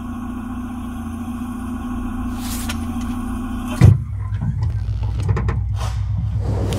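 Car engine running, heard as a steady low hum from inside the cabin. Just before four seconds in, one loud thump, like a car door shutting. After it the engine rumble is heavier, with a few clicks.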